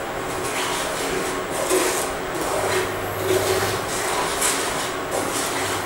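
Wooden spatula scraping and stirring a thick, crumbly mixture of roasted semolina, gram flour and wheat flour in ghee around a non-stick frying pan, in repeated strokes, over the steady hum of an induction cooktop.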